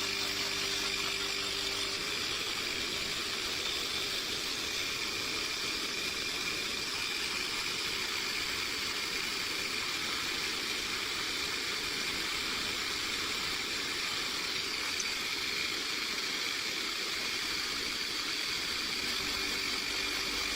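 CYCPLUS 150 PSI cordless mini air compressor running steadily, pumping air through a ball-inflation needle into a balloon.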